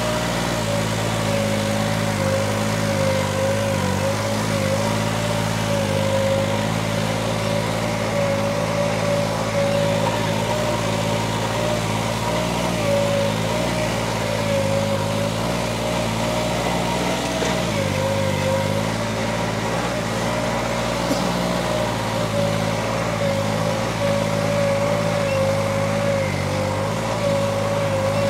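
New Holland 3630 Special Edition tractor's diesel engine running steadily under load, pulling a tined cultivator through hard ground, with a slightly wavering whine over the engine note.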